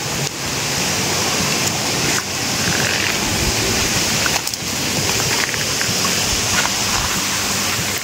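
Steady rush of flowing water, an even hiss with a few faint knocks.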